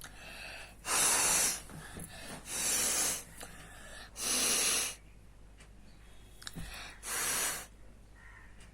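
A woman blowing her nose hard four times, each blow a forceful noisy rush of air about half a second long, with quieter breaths in between.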